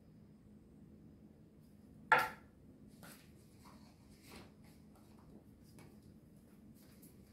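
A fork clinks sharply once against a plate about two seconds in, ringing briefly, followed by a few faint taps as pineapple pieces are set on the rice.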